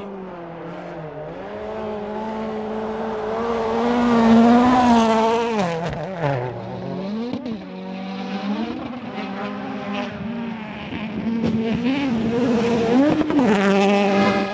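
Rally cars' turbocharged four-cylinder engines revving hard at stage speed, the engine note repeatedly climbing and dropping with gear changes, with sudden jumps in pitch where one car's sound gives way to another's.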